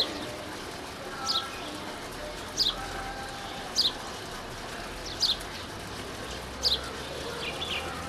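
Female house sparrow chirping: five short single chirps spaced roughly a second and a half apart, each a quick downward slide in pitch, then a fainter double chirp near the end.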